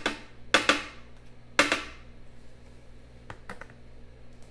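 A metal spoon knocked three times against the rim of a plastic food processor bowl, shaking sour cream off it, each knock sharp with a short ring; two lighter clicks follow a little later.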